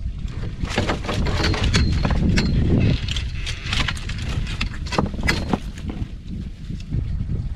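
Wind buffeting the microphone as a low rumble, with many short clicks and rattles of fishing gear being handled.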